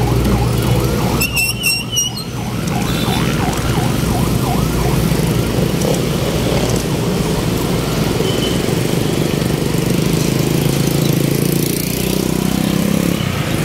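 Road traffic with a vehicle engine running close by. A warbling tone repeats about twice a second through the first half.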